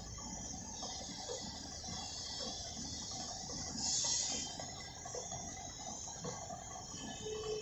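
Low, steady workshop background with scattered light clicks and short squeaks; about four seconds in, a short hiss of air from a gravity-feed paint spray gun.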